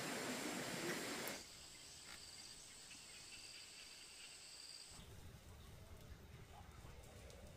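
Rushing water for about the first second, then after a sudden cut, insects trilling steadily in two high tones; about five seconds in the trill stops and a low rumble takes over.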